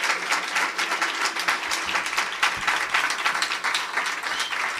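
Audience applause: many hands clapping densely and steadily, at the close of a live song recording.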